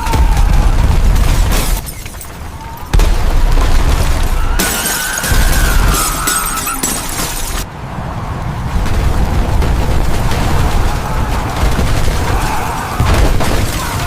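Deep rumbling with crashes and shattering, as in earthquake footage of shaking buildings, changing abruptly several times as segments cut into one another, over background music.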